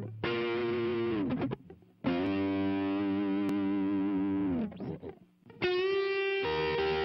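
Opening bars of a recorded Mandopop rock song: a distorted electric guitar holds long notes that slide down in pitch at the end of each phrase, with short breaks between phrases. A fuller backing comes in near the end.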